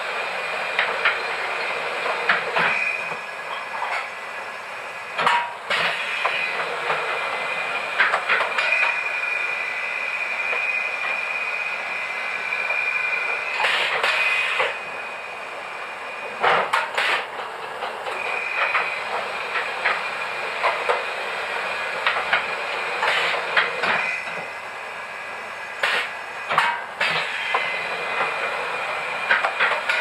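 Motor-driven flatbed lithographic proof press running with a steady high whine, with clanks and knocks from its moving bed and cylinder carriage. It goes quieter twice for a couple of seconds, about halfway and again later, while a printed sheet is lifted off the bed, then runs again.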